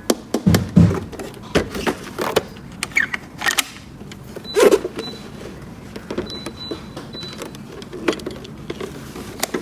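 Plastic toy pieces being handled: irregular clicks and knocks, with a couple of duller thuds.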